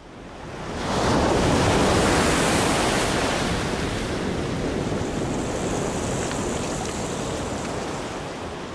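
Roar of a breaking ocean wave and its whitewater, swelling in over the first second, loudest for a couple of seconds, then slowly dying away.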